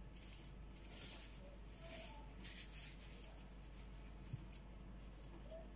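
Quiet kitchen room tone with a low hum, a few faint rustles and one soft tick.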